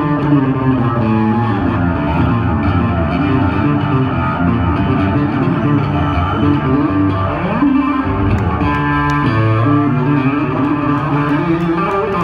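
Yamaha electric bass played solo through a loud amplifier: fast runs of quick, pitched notes, with a sweeping slide down and back up in pitch about seven to eight seconds in.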